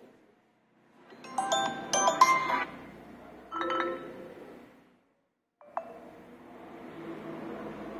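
Vivo T2 5G smartphone loudspeaker playing short bell-like chime tones in a sound test, as its volume sliders are moved. There are two bursts, about one and a half and three and a half seconds in. After a short gap another sound starts abruptly and trails off into a steady soft hiss.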